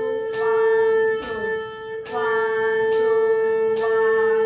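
Erhu bowed on one long-held note, the A ('5' in D tuning), a steady sustained tone. The bow changes direction every second or two, each change heard as a brief dip in the note.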